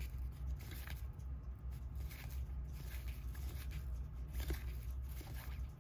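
Faint rustling and light ticks of 1991 Upper Deck baseball cards being slid one by one from the front of a hand-held stack to the back, over a steady low hum.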